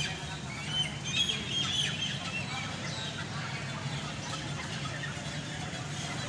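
A truckload of caged Rhode Island Red chickens clucking and calling, many birds at once, the calls thickest in the first two seconds, over a steady low hum.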